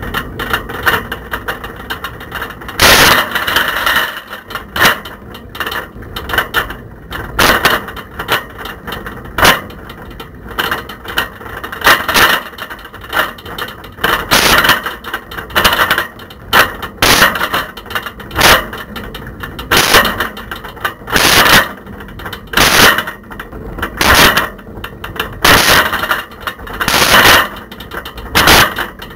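Camera rattling loosely in a bicycle's basket as the bike rides along, with loud clattering bursts every second or so over a steady background noise.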